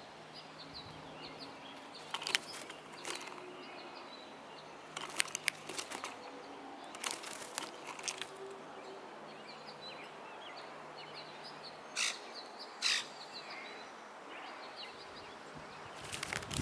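Small birds chirping repeatedly at a backyard feeder, broken by several sharp clicks or flutters. Two louder calls come in the last third.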